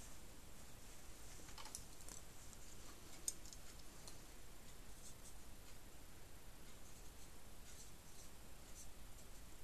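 Faint scratching and light clicks of a marker pen and a small ruler being handled and used on the lathe's old switch fascia plate, ending with the pen writing measurements on it; one sharper click about three seconds in.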